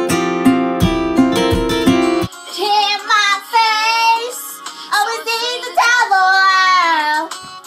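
Strummed acoustic guitar music that cuts off suddenly about two seconds in, followed by a girl singing loudly with no accompaniment.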